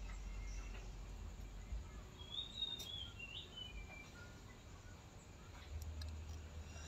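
Faint outdoor background with a low rumble, and a small bird chirping a few short gliding notes about two to three seconds in.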